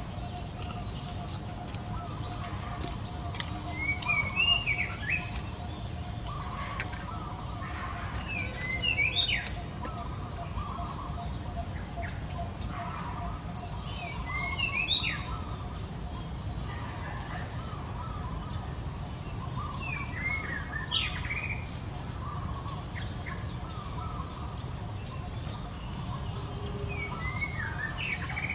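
Birds calling: one bird repeats a short, quickly rising-and-falling phrase about every five or six seconds, among many brief high chirps, over a steady low background noise.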